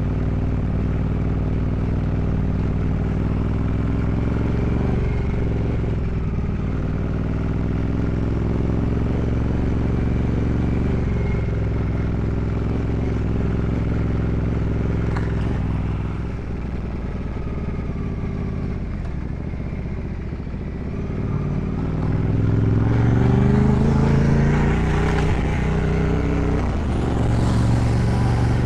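Ducati Multistrada 1200S's L-twin engine under way, its note rising and falling with the throttle several times and growing louder about 22 seconds in.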